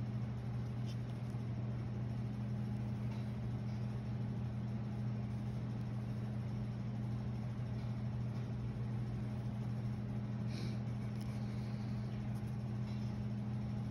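Steady low mechanical hum of room equipment, with a few faint scratches of a pencil sketching on tracing paper.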